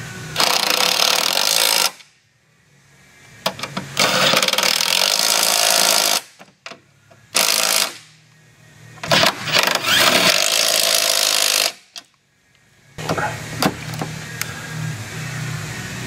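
Pneumatic impact wrench running in four bursts of one to a few seconds each, with short pauses between, spinning off the strut's mounting nuts.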